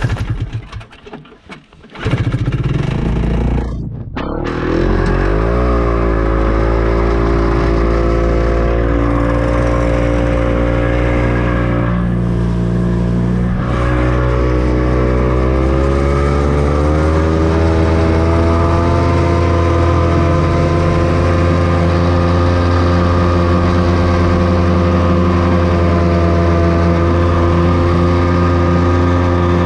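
Snowmobile engine running under way, rising in pitch twice as it speeds up, then holding a steady drone.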